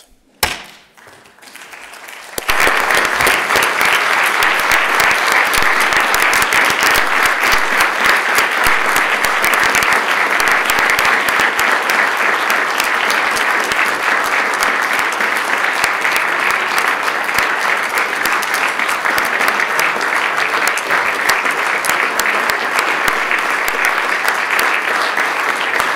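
A large crowd applauding: the clapping breaks out about two seconds in and keeps up steadily.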